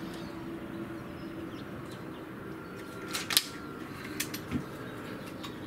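Handling clicks from a Walther Parrus .22 break-barrel spring-piston air rifle being loaded between shots. A sharp metallic click comes a little past three seconds in, as the broken-open barrel is closed, and two lighter clicks follow.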